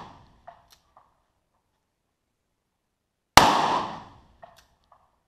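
A single gunshot about three and a half seconds in, a sharp crack that rings out and dies away over about a second, with the tail of the previous shot fading at the start and a few light clicks of gun handling between the shots.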